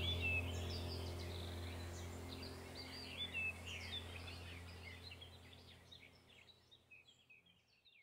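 Sooty-headed bulbuls calling: a quick run of short chirps and slurred whistled notes. A steady low hum runs under them, and the whole sound fades steadily away to near nothing by the end.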